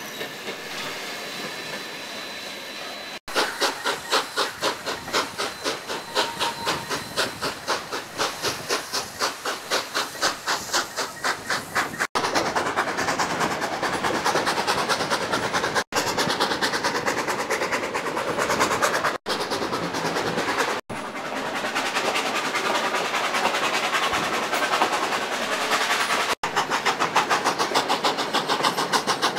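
Narrow gauge steam locomotive working hard up a grade, its exhaust chuffing in a strong even beat, heard from a passenger car along with the cars rolling and clicking on the rails. The first few seconds are a steadier rolling noise before the chuffing comes in, and the sound breaks off abruptly several times.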